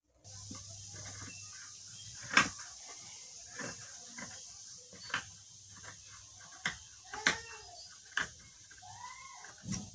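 Fabric scissors cutting suit cloth on a table: a series of separate snips at irregular intervals, the loudest about two and a half seconds in. Near the end there is a faint animal call.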